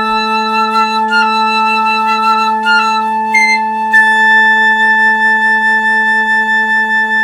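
Flutes playing several parts at once, piccolo, flute and alto flute, on a sustained chord. A low note is held throughout while an upper line shifts through a few short notes, touches a brief high note around three seconds in, and a high note enters about four seconds in and is held.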